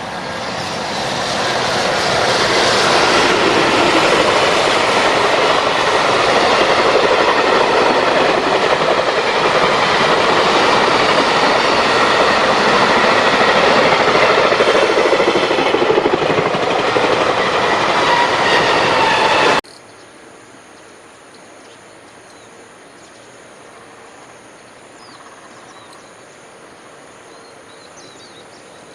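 A freight train passing close at speed, its wagons rolling and clattering over the rails with a faint high squeal in the wheel noise. It builds over the first couple of seconds, holds steady, and cuts off suddenly about twenty seconds in, leaving a quiet outdoor background.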